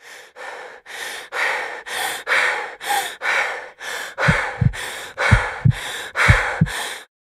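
Heavy rhythmic panting, about two breaths a second, growing louder, with three pairs of low thumps in the second half.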